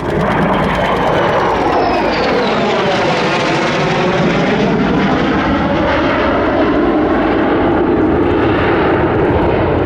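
Lockheed Martin F-35B Lightning jet flying past with its Pratt & Whitney F135 turbofan at full noise. The roar comes in abruptly and stays loud, with a sweeping, phasing whoosh as the jet passes.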